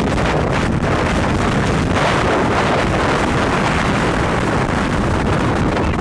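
Strong wind buffeting the microphone: a loud, steady rush of noise, heaviest in the low end.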